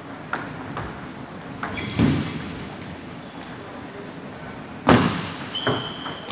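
Table tennis ball striking paddles and the table: scattered light ticks, then louder knocks about two seconds in and near the end as play gets going. A brief high squeak comes near the end.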